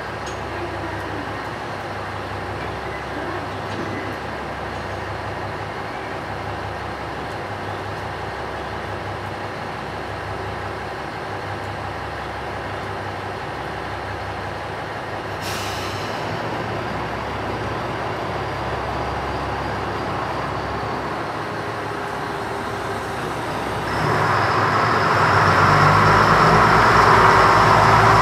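KiHa 100 series diesel railcar's engine running steadily, with a short hiss of air about halfway through. Near the end the engine gets clearly louder as it is throttled up.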